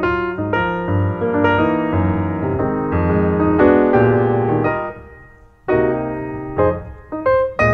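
Piano music: a keyboard playing a steady stream of notes and chords, with a brief drop-off about five seconds in before the notes resume.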